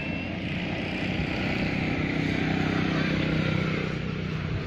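A motor vehicle engine running in the background with a steady low hum, growing louder to a peak about three seconds in and then easing off, as a vehicle passing by would. Indistinct voices are mixed in.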